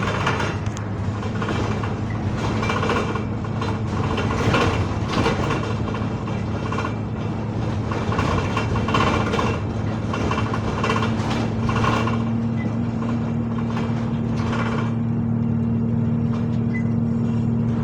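Bus interior while driving: a steady engine and gearbox drone that lifts slightly in pitch after about five seconds, with running noise and repeated short rattles.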